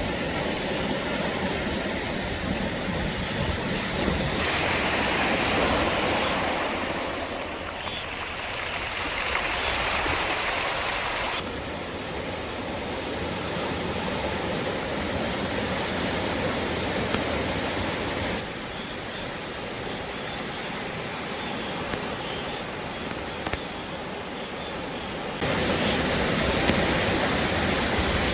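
Sea waves washing and breaking on the shore in a steady rush of surf, its tone shifting abruptly a few times.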